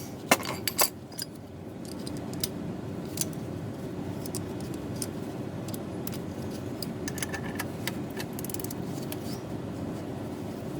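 Metallic clicks and clinks of a wrench working a loosened bolt on a car's A/C compressor, with a few sharper knocks in the first second and scattered light clicks after, over a steady low background rumble.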